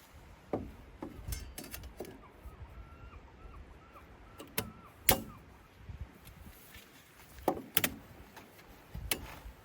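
Irregular sharp clicks and knocks, a few close together, the loudest about five seconds in, with a faint run of about six short high notes between two and four seconds in.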